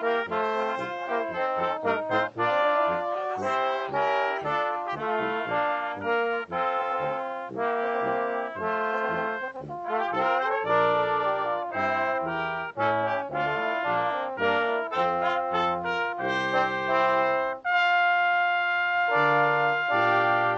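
Brass ensemble of trumpets and trombones playing chords that change every beat or so, settling into longer held chords near the end.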